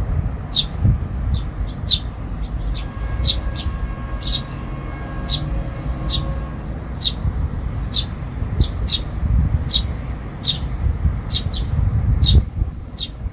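Eurasian tree sparrows chirping: short, sharp single chirps repeated about once or twice a second, over a low steady rumble.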